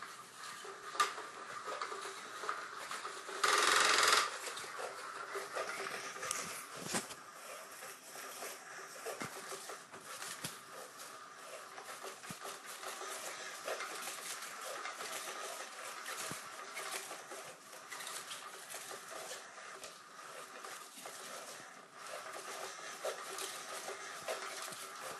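Small electric motor of a battery-powered cat toy whirring steadily under its round fabric cover, with scattered light clicks and rustles. A brief loud rustle comes about three and a half seconds in.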